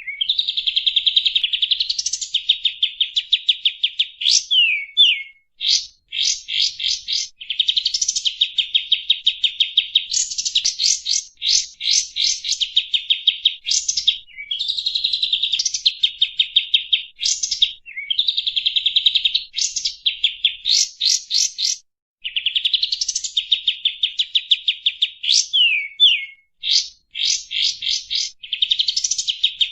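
Kapas tembak birdsong used as a lure call: long, rapid, buzzy trills broken by quick upswept notes, repeated phrase after phrase with only brief pauses.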